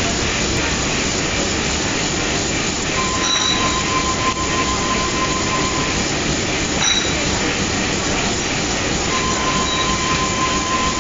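Komori Lithrone sheet-fed offset printing press running: a loud, steady mechanical clatter and rumble. A steady high tone sounds twice, about three seconds each time, a few seconds in and again near the end.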